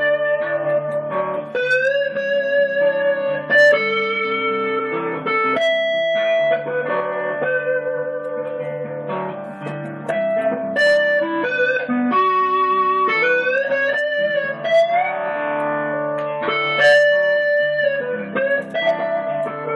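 Electric guitar playing a slow, soulful blues lead with sustained notes and rising string bends over a looped rhythm guitar part from a Boss DD-7 delay pedal's looper.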